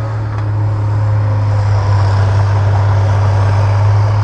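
Caterpillar 963B track loader's six-cylinder Caterpillar diesel engine running steadily as it works a brush pile: a loud, low, even engine drone with a faint high whine over it.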